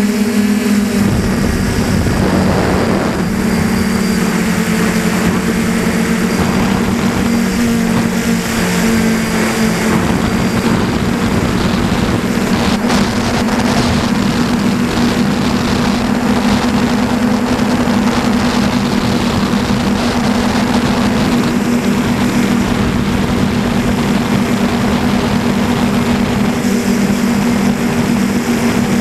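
DJI Flamewheel 450 quadcopter's brushless motors and propellers running in flight, heard close up from a camera on the airframe: a steady hum at a couple of fixed pitches over a rush of wind and propeller wash.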